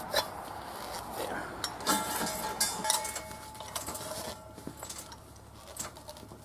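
Metal clinks and knocks as a welding shielding-gas cylinder is handled at its valve and tipped, with a short ringing tone about two seconds in.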